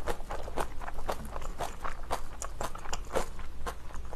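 Close-miked chewing of spicy cabbage kimchi and rice, with irregular wet crunches several times a second.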